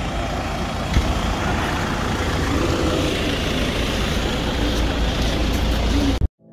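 Mercedes-Benz Vito minivan engine idling, a steady rumble, with a single knock about a second in; the sound cuts off abruptly near the end.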